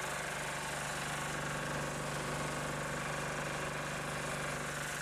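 A vehicle engine idling steadily, a constant even hum with no change in speed.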